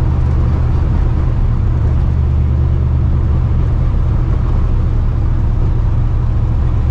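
Straight-piped, cammed and supercharged 5.4-litre two-valve V8 in a 1999 Mustang GT, heard from inside the cabin, holding a steady low-rpm cruise with a loud, deep, even exhaust rumble.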